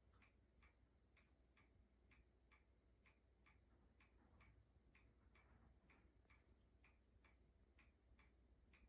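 Faint, steady ticking of a clock, a little over two ticks a second, over quiet room tone.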